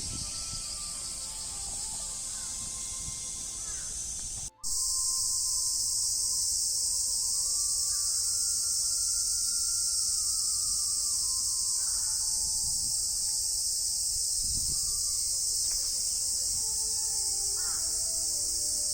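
Cicadas calling in chorus, a steady high-pitched buzz. There is a brief break about four and a half seconds in, after which the chorus is louder.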